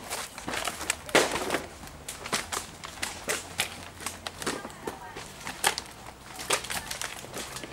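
Bundles of empty plastic PET bottles crackling and clattering as they are thrown and caught by hand, a steady string of sharp clicks and crinkles.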